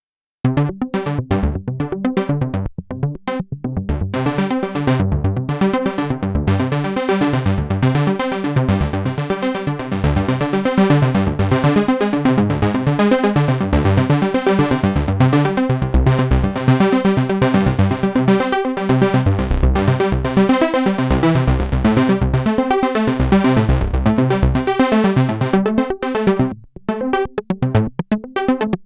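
Sequential Trigon 6 analog polysynth playing its 'Trancer Arp' preset: a fast, repeating arpeggio over pulsing bass notes. It starts about half a second in and briefly drops out near the end.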